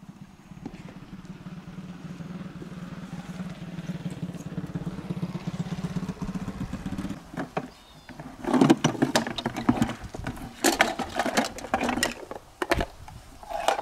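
A small engine running steadily with a low hum, cutting off abruptly about seven seconds in. After it comes a run of loud, irregular knocks and scuffs.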